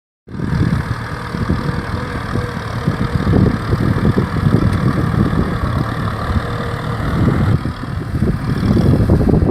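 Kubota M6040 SU tractor's diesel engine running steadily while ploughing.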